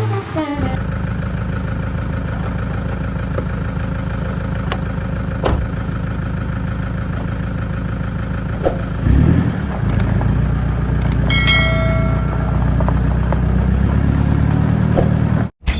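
A vehicle engine running steadily, with a change in its note and level about nine seconds in, as when accelerating or shifting. A short bell-like ring sounds over it about two-thirds of the way through.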